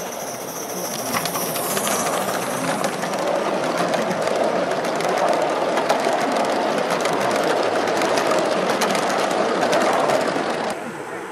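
Gauge 1 model train coaches running past on garden railway track: a steady rumble of wheels on rails with many fine ticks over the rail joints. It grows louder as the train nears, then drops off sharply about ten and a half seconds in.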